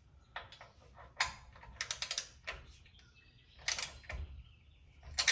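Ratchet head of a digital torque wrench clicking in short, irregular bursts as the brake caliper mounting bolts are tightened.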